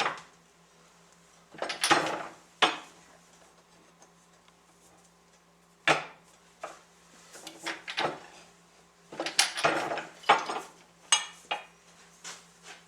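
Metal parts of a floor-sander orbital attachment clinking and knocking as its gear-and-bearing assemblies are handled and pressed back into the housing. A few single knocks in the first half, then a quicker run of clinks in the last few seconds.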